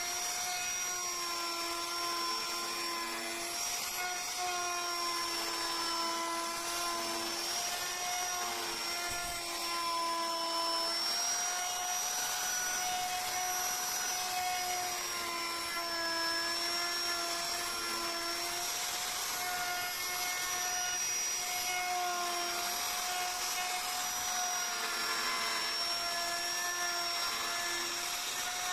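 High-speed electric carving tool running against wood: a steady motor whine over grinding hiss, its pitch dipping and recovering a little as the bit takes load.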